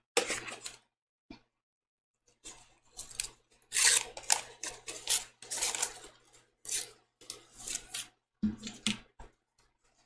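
Paper backing of HeatnBond fusible web on fabric hexagons being scored and peeled off, making short scratching, crackling paper sounds. A few come right at the start, then after a pause a dense, irregular run of them until near the end.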